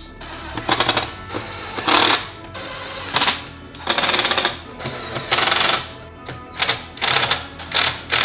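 Cordless impact driver driving screws into a wooden frame in about eight short bursts of rapid hammering, over background music.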